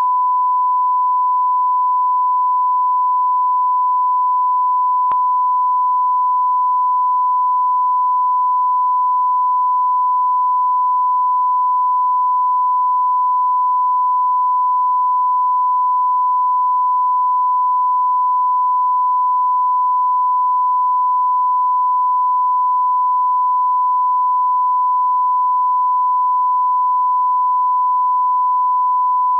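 Steady 1 kHz sine test tone, the reference tone that goes with colour bars, held at one unchanging pitch, with a faint click about five seconds in.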